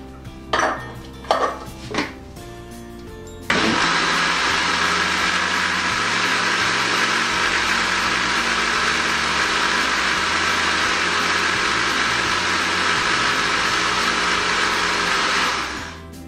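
Countertop electric blender running steadily, blending a batter of apple pieces, milk and flour; it starts about three and a half seconds in and stops just before the end. Three short knocks come before it starts.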